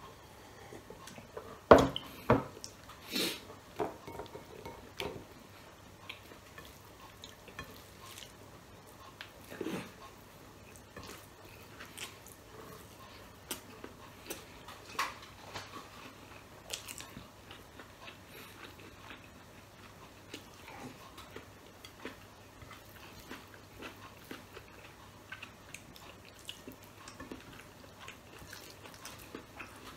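Close-miked eating: chewing and small clicks of fingers working rice on a plate. There are a few sharp knocks near the start, the loudest about two seconds in.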